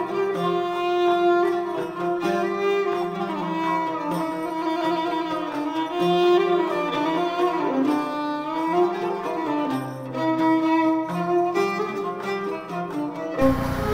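Background music led by bowed strings playing a flowing melody. It cuts off abruptly just before the end.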